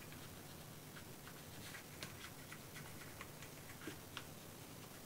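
Faint, irregular light ticks and taps of cardstock being handled and pressed together by hand.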